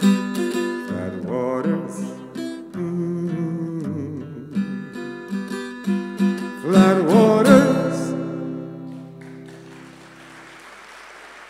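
Acoustic guitar picked and strummed as the closing bars of a calypso ballad, with a few wordless, wavering sung notes over it. The last chord rings out and fades away.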